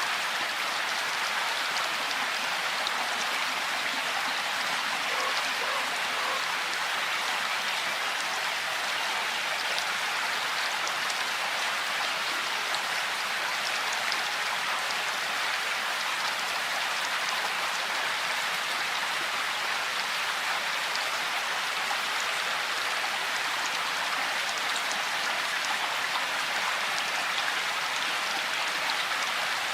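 Steady rainfall, a dense even hiss of many raindrops with fine individual drop ticks.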